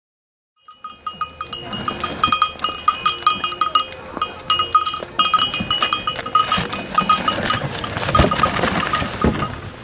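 A bell on a reindeer's harness jingling rapidly and unevenly as the reindeer walks pulling a sleigh; it starts about half a second in. Near the end a hissing scrape swells under the bell as the sleigh's wooden runners slide past on the snow.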